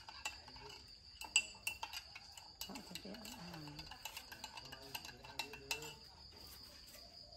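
Metal spoon stirring coffee in a ceramic mug, clinking against its sides over and over in quick light taps.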